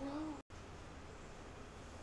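The end of a woman's drawn-out exclamation, cut off by a brief dropout about half a second in, then faint steady background hiss and low hum.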